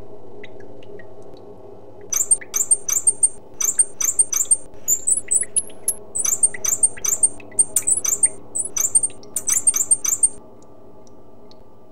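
A fast run of short, high-pitched squeaky chirps, about three or four a second, starting about two seconds in and cutting off near the end, over a steady low hum.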